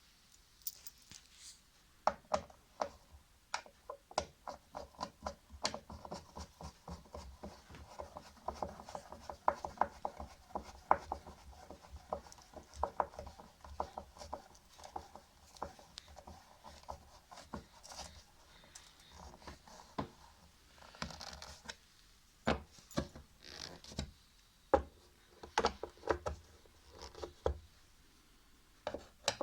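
Hand tools clicking and knocking on washing machine parts. Rapid runs of ratchet-like clicks fall in the middle, among scattered single knocks.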